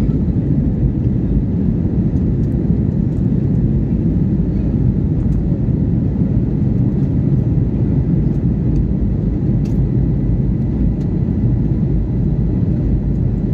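Cabin noise of an Airbus A320-family jetliner climbing: the jet engines and rushing air make a steady low drone, heard from inside the cabin.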